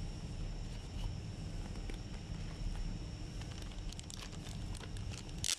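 Clicks and taps of plastic air-vent housings being handled, sparse at first and thickening in the second half, over a steady low hum, ending with a brief loud rustle.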